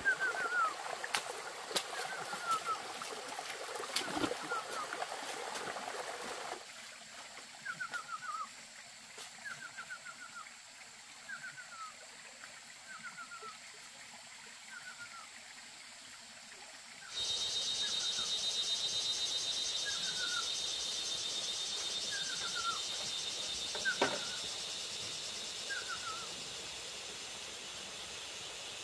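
Forest ambience: a short descending chirp call repeats every second or so throughout, over running stream water at first. The water drops away after a few seconds. About two-thirds of the way in, a steady high insect drone with a fine pulsing texture starts, and there is one sharp click near the end.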